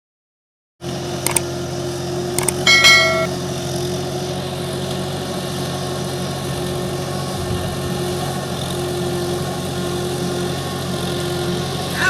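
A steady engine hum starts suddenly about a second in and runs on evenly, with a few sharp clicks and a short ringing tone about three seconds in.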